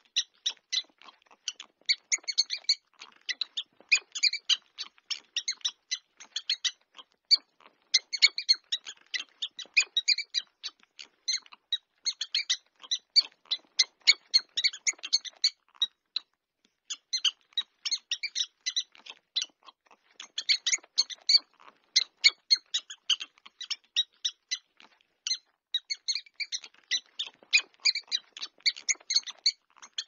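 Mouse squeaks in quick runs of short, high-pitched chirps, several a second, broken by a few brief pauses.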